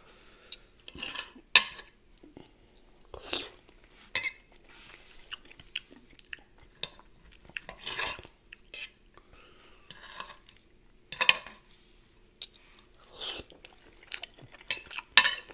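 Close-miked chewing and mouth sounds of a person eating an omelette, with scattered sharp clicks of utensils against a plate.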